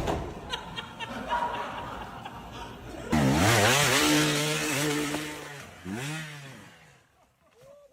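A motor revs up sharply about three seconds in and holds a steady, buzzing pitch for a couple of seconds. It then drops away, with shorter rise-and-fall revs near the end.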